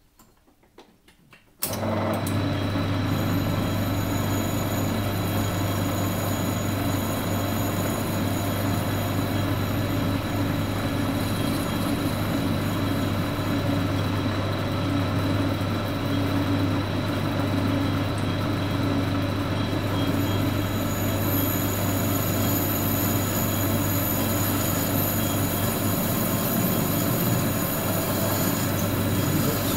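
Warco WMT800 lathe-mill combination machine's belt-driven lathe motor switching on about two seconds in and running steadily while the tool turns down an aluminium billet: a steady hum with a high whine over it.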